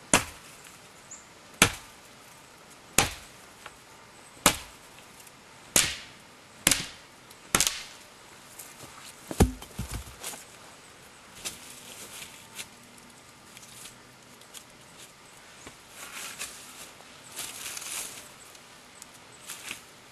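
Axe chopping into a seasoned wooden pole to split it: sharp strokes about every one and a half seconds, seven in a row, then a heavier double knock with a low thud near the middle. After that, only faint rustling and small clicks.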